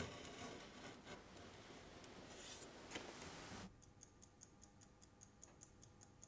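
Faint hiss with a few soft clicks, then, from about four seconds in, a mechanical pocket watch ticking evenly, about five ticks a second.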